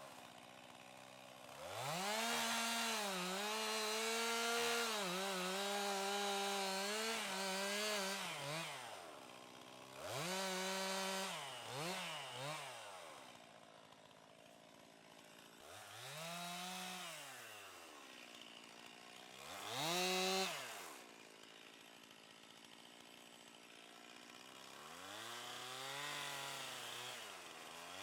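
Two-stroke chainsaw running at high revs for several seconds, then revved in short bursts that drop back to idle in between.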